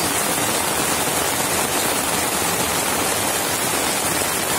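Steady rain falling on a concrete rooftop terrace, an even, unbroken hiss.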